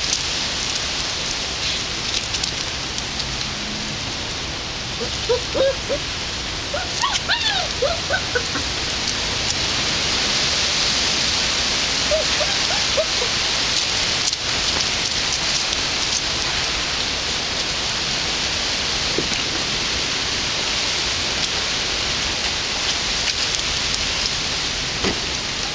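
A steady, even hiss like rain or rushing water runs through. Over it come a few brief high squeaks from puppies at play with a squeaky toy, a cluster about five to nine seconds in and a couple more around twelve seconds.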